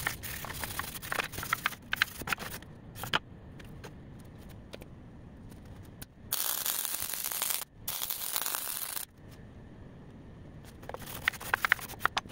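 Gloved hands scraping and wire-brushing welds on a steel griddle plate: sharp scrapes and clicks of metal on steel. Midway come two steady hissing spells of just over a second each, then a few more clicks near the end.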